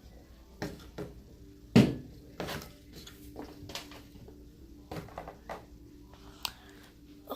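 Scattered knocks and clacks of containers and supplies being handled and set down on a hard surface, the loudest about two seconds in.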